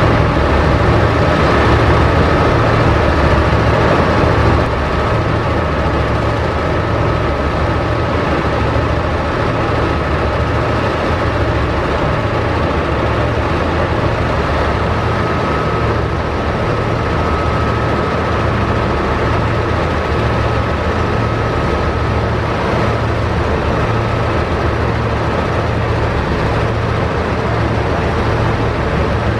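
Heavy diesel machinery running steadily with a low, evenly pulsing drone and a thin, steady high whine that fades out near the end.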